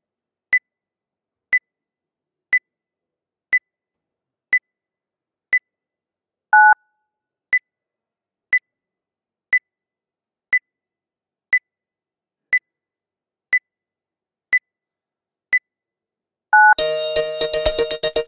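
Short, high electronic beeps, one each second like a time signal counting off the seconds. About six and a half seconds in, one beep is replaced by a brief two-note tone like a phone keypad tone. Near the end the two-note tone sounds again and synthesizer music begins.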